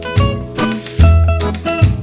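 Background music: a light, upbeat swing-style tune with plucked guitar over a bouncing bass line and a steady beat.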